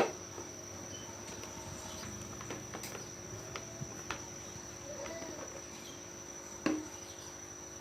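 A steady, high-pitched cricket drone, with a few light knocks and clicks: a sharp one right at the start and another near the end.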